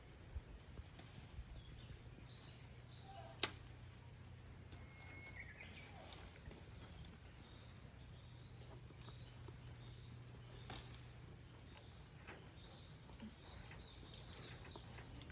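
Quiet outdoor ambience with faint, scattered bird chirps over a low steady hum, and one sharp click about three and a half seconds in.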